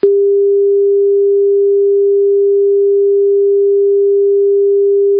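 A pure 400 Hz sine tone, computer-generated by MATLAB's sound function at a 22,050 Hz sample rate, held loud and steady at one pitch. It starts with a click.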